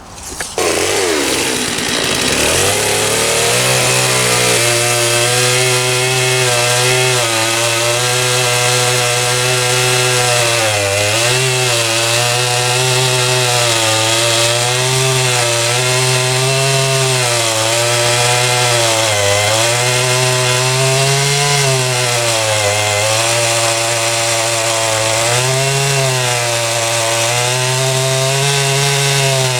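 Stihl MS 660 clone two-stroke chainsaw with a 36-inch bullnose bar revving up, then cutting through a large log at high revs. The engine pitch sags and recovers every two to three seconds as the chain loads into the wood.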